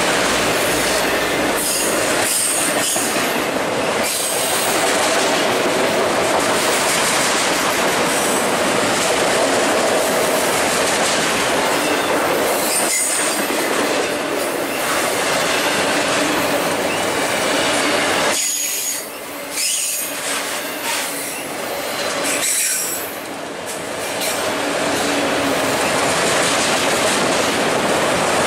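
Multilevel autorack freight cars rolling past close by: a steady, loud noise of steel wheels on rails with rattling and clatter, and brief high wheel squeals at times. The noise dips briefly twice, about two-thirds of the way in.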